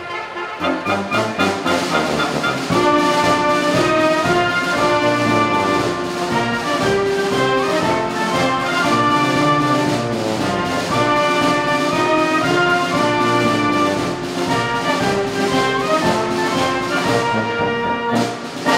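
Orchestral background music led by brass, with held notes over a steady beat; it fills out about three seconds in.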